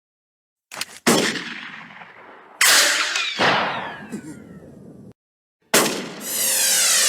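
Anime sound effects: a revolver being drawn with a couple of small clicks, then two sharp bangs that each fade away, the second trailed by falling whistling tones. After a brief silence comes a sniper rifle shot, followed by a sweeping, warbling effect.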